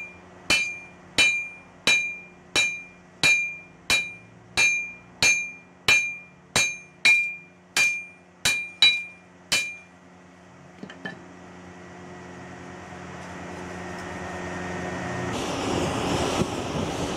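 Hand hammer striking red-hot leaf-spring steel on an anvil, about sixteen evenly paced blows, each leaving a short bright ring; the hammering stops about ten seconds in. After a couple of light clinks, a steady rushing noise builds up near the end, from the coal forge fire.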